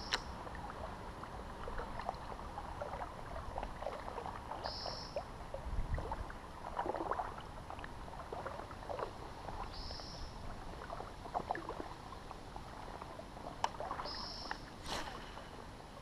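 Water lapping and light splashes around a small fishing boat drifting on a creek, with small knocks from the hull and gear. A short high chirp repeats about every five seconds.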